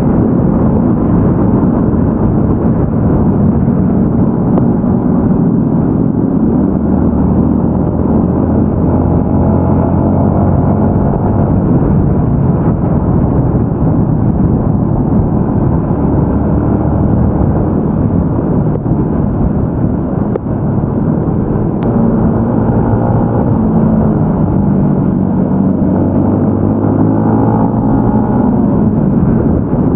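Yamaha Y15ZR motorcycle's 150 cc single-cylinder engine running steadily while riding, its pitch rising and falling gently as the speed changes.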